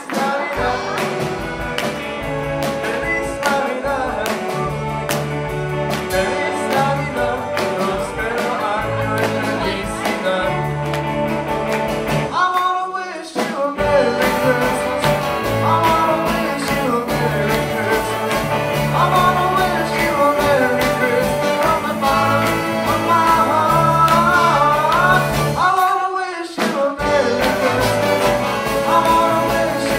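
A live rockabilly band plays: electric guitars, upright bass, drums and a horn section with trumpets and trombone. The whole band stops dead for about a second twice, once near the middle and once near the end, then comes back in.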